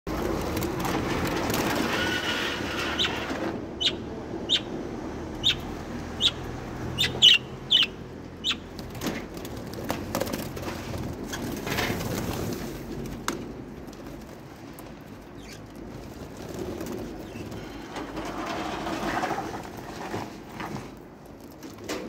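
Budgerigars chattering, then a run of about ten short, sharp chirps a little under one second apart, followed by scattered clicks.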